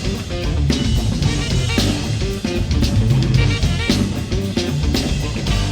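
A live rap-rock band playing an instrumental passage: drum kit keeping an even beat under bass and electric guitar.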